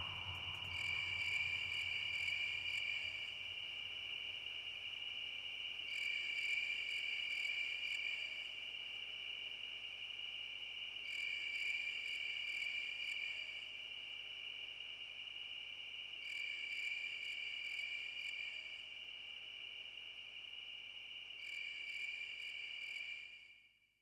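Insects trilling steadily in a high pitch, growing louder for a couple of seconds about every five seconds, then cutting off abruptly near the end.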